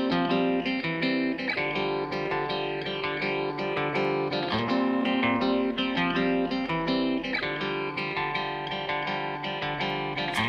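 Background music led by a plucked guitar, with notes changing in a regular rhythm.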